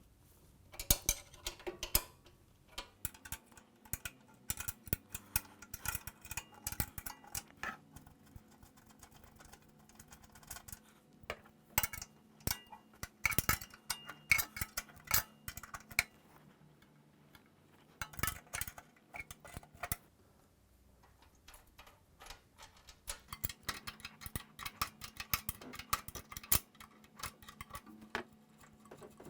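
Spanner undoing the engine mounting bolts: bursts of rapid metallic clicking and clinking, with pauses between bolts.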